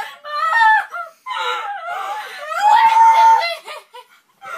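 Girls wailing in mock sobs and breaking into laughter, with one long high wail about three seconds in.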